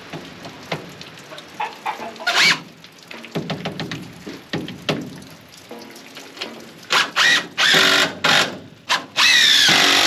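Cordless drill driving screws into wooden framing. The drill runs in several short bursts from about seven seconds in, ending with a longer run that rises in pitch, after a few light knocks of wood being handled.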